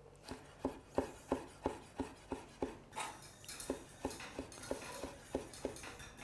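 Chef's knife slicing tomato into long thin julienne strips on a wooden cutting board, the blade tapping the board about three times a second in a steady rhythm.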